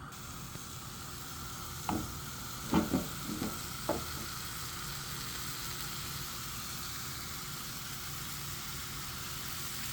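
Pancake batter sizzling steadily in a hot, oiled mini cast iron skillet, just poured over banana and pear pieces. A few light knocks come between about two and four seconds in.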